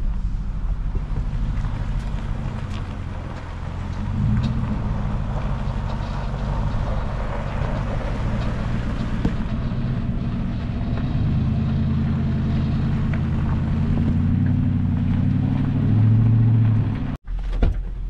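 Vehicle engine running steadily, with wind noise on the microphone; the sound cuts out abruptly for a moment near the end.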